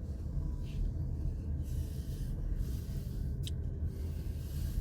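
A steady low rumble, with faint breathy noises and a single short click about three and a half seconds in.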